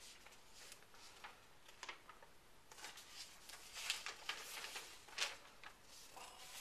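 Sheets of paper being handled and swapped: a series of short, soft rustles and crinkles, more frequent and louder from about three seconds in.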